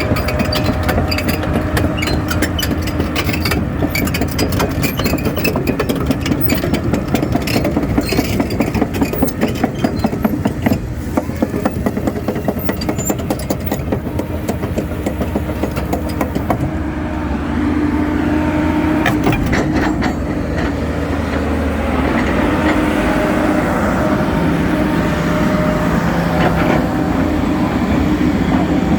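Hyundai excavator's diesel engine running steadily, with rapid metallic clatter over roughly the first ten seconds. The engine note firms up and grows louder a little past halfway.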